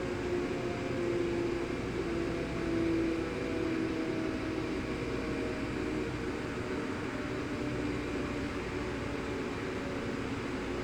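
Sterling Model M electromechanical siren winding down, its steady tone fading out over the first five or six seconds and leaving only steady background noise.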